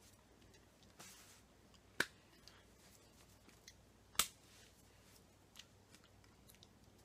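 Hands striking together while signing in ASL: two sharp slaps about two and four seconds in, with a brief rustle and faint clicks between them over quiet room tone.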